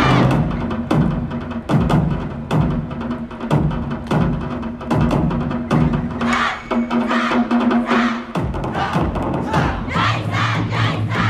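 Yosakoi dance music with a steady drum beat and bass line, over which the dancers' hand-held naruko clappers clack. The dancers shout calls, most clearly around six to eight seconds in.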